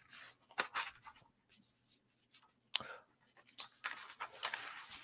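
Faint scattered clicks and rustles of handling noise, with one sharper click about three seconds in and a busier run of small ticks and rustling near the end, over a faint steady hum.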